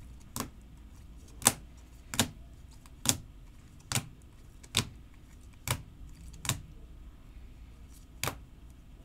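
Rigid plastic trading-card holders (top loaders) clacking against one another as a stack of cards is flipped through one by one: about nine sharp clicks, roughly one a second, with a short pause near the end.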